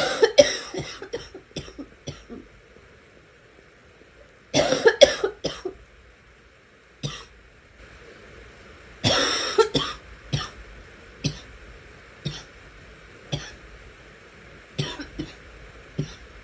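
A sick person coughing in fits of rapid coughs: a burst right at the start, another about four and a half seconds in, and a longer one about nine seconds in, followed by single coughs roughly a second apart.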